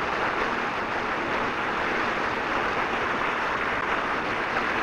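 Steady rushing of water and wind past an inflatable towable tube being pulled across a lake at speed, an even hiss with no breaks.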